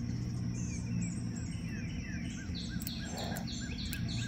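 Several birds chirping over a steady low hum, with a run of short repeated notes, about three a second, from about halfway in.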